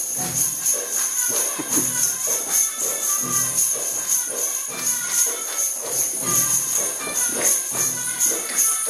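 Music led by steadily shaken jingling percussion, with a low beat about every two-thirds of a second.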